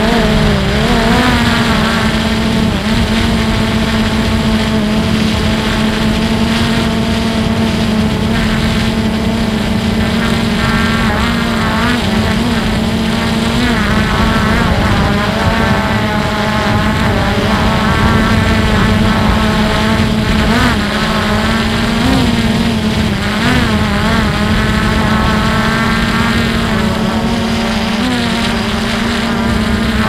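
A multirotor drone's electric motors and propellers whining steadily, the pitch wobbling up and down as the motors change speed, with wind rumbling on the microphone.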